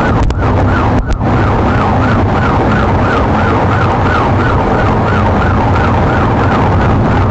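Police car siren on the fast yelp setting, its pitch rising and falling about three times a second, heard from inside the pursuing patrol car over steady engine and road noise at freeway speed. The yelp comes in about a second in.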